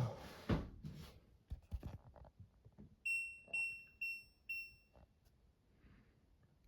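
Washing machine's electronic beeper sounding four identical high beeps about half a second apart, after a few knocks and clicks.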